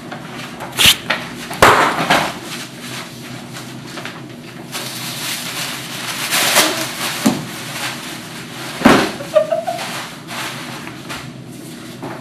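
Objects being handled and knocked about at a lab bench: several sharp knocks and bangs, the loudest about a second in and near nine seconds in, with a stretch of hissing noise through the middle.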